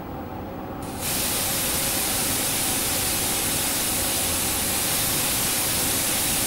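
Renishaw 5/01 vacuum casting machine drawing a vacuum on its chamber: a steady hiss that starts suddenly about a second in.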